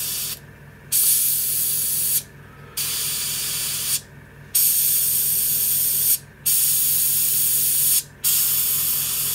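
Gaahleri Ace dual-action airbrush spraying paint in short hissing blasts, about five of them, each a second or more long with half-second pauses between, as dots are sprayed onto a test spoon. A low steady hum runs underneath.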